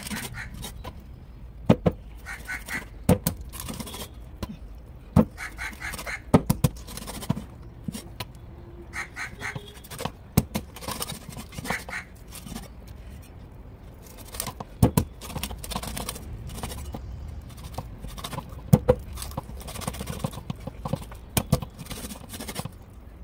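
Steel meat cleaver chopping a striped snakehead fish into steaks on a wooden block: irregular heavy chops, several in quick pairs, with pauses between.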